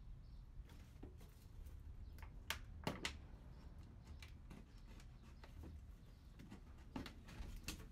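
Hands working potting soil, roots and plastic pots: quiet rustling with a few sharp crackles and clicks, two about two and a half to three seconds in and two more near the end.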